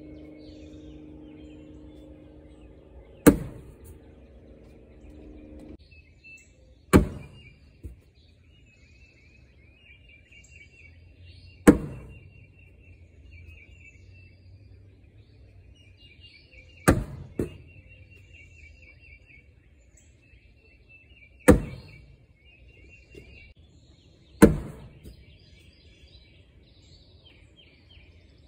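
Cornhole bags landing one at a time on a wooden ACE cornhole board: six sharp thuds spaced a few seconds apart. Birds chirp in the background, and a steady hum stops about six seconds in.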